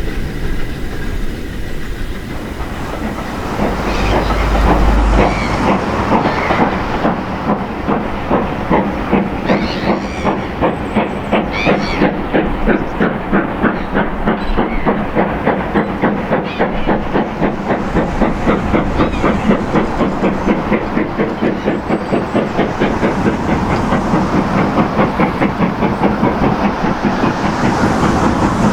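Steam-hauled train passing close by, getting louder about three seconds in, then its wheels clicking over the rail joints in a steady rhythm of about three a second as the carriages roll past, with some steam hiss.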